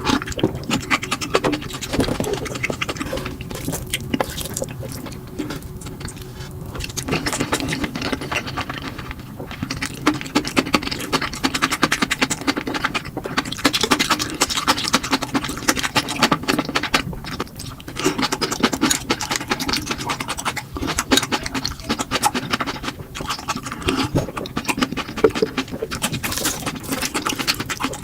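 Close-miked eating sounds: a person chewing and eating spicy fire noodles, a dense run of small wet clicks and smacks.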